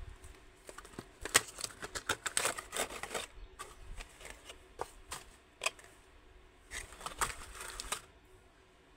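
Earphone packaging being opened and handled: a cardboard box and a clear plastic tray clicking and crinkling in quick runs, the first about a second in, then again for about a second near the end.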